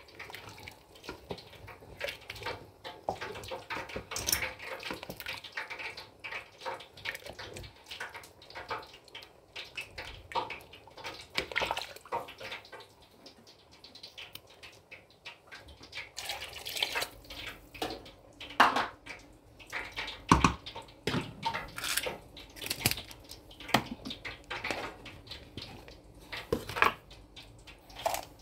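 Rice in stock being stirred with a wooden spoon in a stainless steel pot: liquid sloshing and dripping, with irregular knocks and clicks of the spoon and pot.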